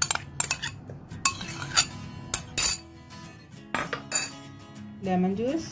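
Metal spoon clinking and tapping against mixing bowls as spoonfuls of spice and ginger-garlic paste are scooped and knocked off. There are about eight sharp, separate clinks, spread unevenly.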